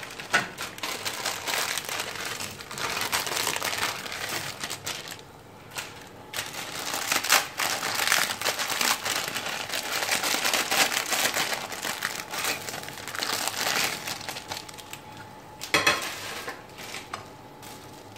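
Dry Maggi instant noodle cakes being snapped and crumbled by hand, a dense crackling crunch in two long stretches with a short pause between. A single sharp knock comes near the end.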